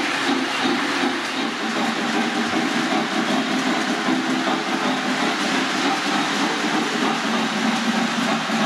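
O-gauge model freight train running past on three-rail track: a steady rumble of wheels and motors as a diesel locomotive goes by, followed by freight cars.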